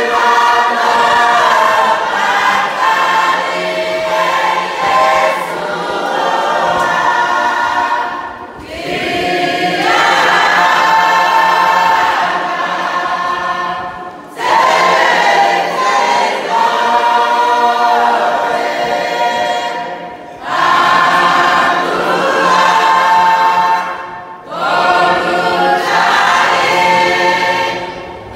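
A church congregation singing a hymn together in many voices, in long held phrases with a short break for breath every five or six seconds.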